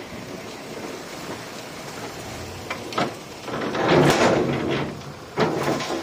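Heavy earthmoving machinery at work: a steady noisy rumble with a sharp knock about three seconds in, a louder rush of noise around four seconds, and another sudden rise near the end.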